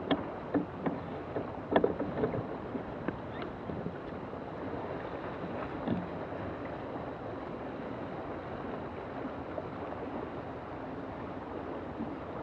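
Water rushing along the hull of a small sailing keelboat under way, with wind on the microphone. A few sharp knocks and slaps in the first few seconds, and one more about six seconds in.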